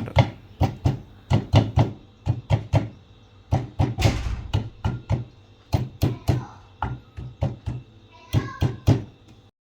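Hand repeatedly knocking the magnetic rotor of an LG direct-drive washing machine motor onto its shaft to seat it level: a long run of irregular dull knocks, about two or three a second.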